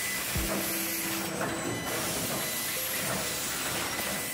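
Body-shop machinery around a robot welding cell: a steady hiss, with several short machine whines at different pitches and one dull thump about half a second in.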